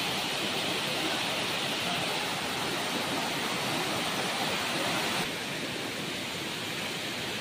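Waterfall rushing steadily in full flow, its water muddy after rain. About five seconds in it cuts abruptly to the slightly quieter, even rush of a muddy stream running over rocks.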